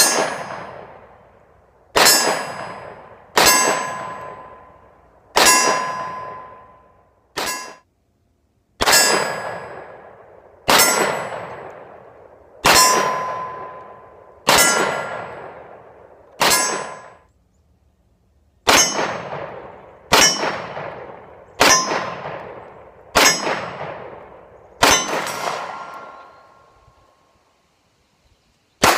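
SIG Sauer P250 Compact pistol firing steadily at AR-500 steel targets, each shot followed by the target's metallic ring, about one every one and a half to two seconds, some fifteen shots with short pauses between strings.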